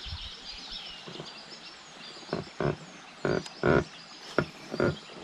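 Small birds chirping steadily outdoors, with a quick run of about seven short, loud sounds of unclear source in the second half.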